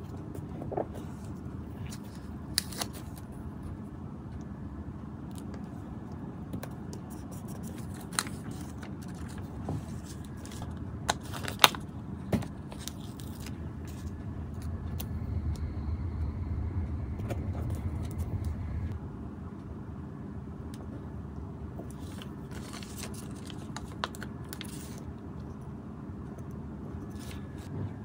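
Paper and plastic stickers being handled, peeled and pressed onto a clear plastic sheet: light rustling with scattered sharp clicks and taps, over a steady low background rumble that grows louder for a few seconds past the middle.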